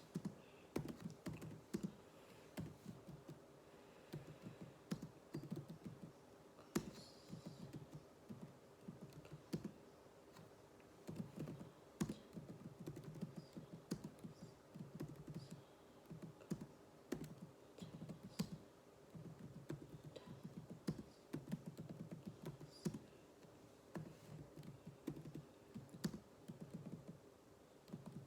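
Computer keyboard being typed on: quick runs of keystroke clicks in bursts of a second or two, with short pauses between them.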